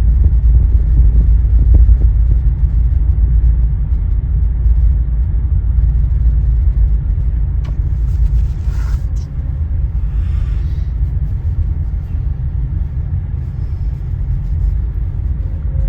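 Deep, steady rumble of a car ferry's engines and side thrusters as the ship manoeuvres back and forth to line up with the loading ramp, with a brief hiss about halfway through.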